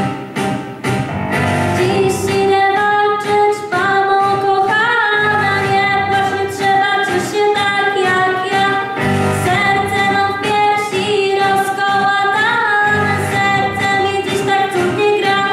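A girl singing a song into a handheld microphone, holding long notes with a slight waver in pitch.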